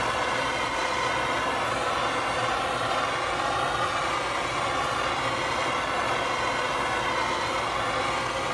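Handheld propane torch burning with a steady hiss, its flame played over wood boards to char the surface.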